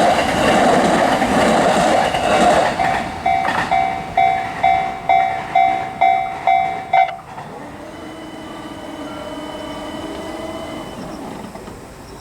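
Japanese level-crossing warning bell ringing about twice a second over the noise of a passing train, whose noise fades after the first few seconds. The bell stops abruptly about seven seconds in, leaving a quieter steady hum.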